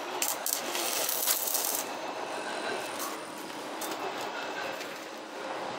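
Playing cards rustling and clicking as they are pushed one by one into the gap between a tyre and its steel rim, with a run of short sharp clicks in the first couple of seconds.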